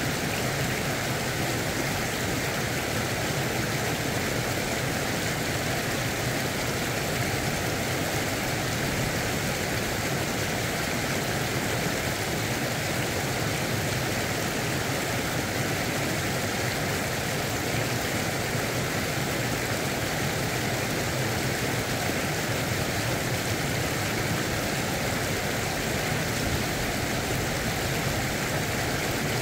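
Steady rush of river water pouring over a low weir, an even noise that does not change.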